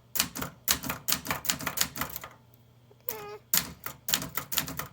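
Brother Charger 11 manual typewriter being typed on, keys striking about four times a second, with a pause of about a second partway through before the typing resumes.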